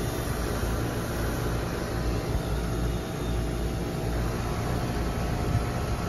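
Trane heat pump outdoor unit running steadily, its compressor and condenser fan giving a continuous low hum while the trim charge of refrigerant is added.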